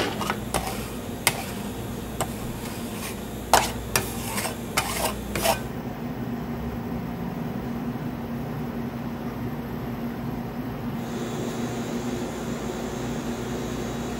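Metal spatulas clicking and tapping on a cold stone slab several times in the first five or so seconds, then a steady machine hum with a low tone.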